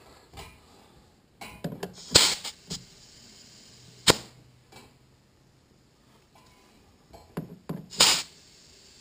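Scattered handling clicks and knocks at a metal manifold and its fittings. Two loud sharp clacks come about two seconds in and near the end, with a single sharp click in between.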